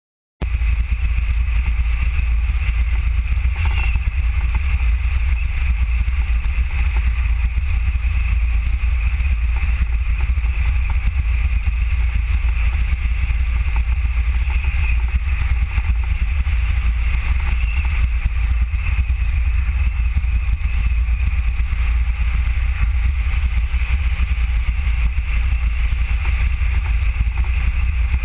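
Steady ride noise from a Mango velomobile under way: a low wind rumble on the microphone with a hiss of rolling noise over it. It starts abruptly about half a second in and stays even throughout.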